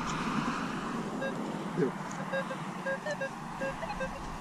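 Metal detector giving short, repeated beeps at one pitch as its search coil is swept over the ground, starting about a second in.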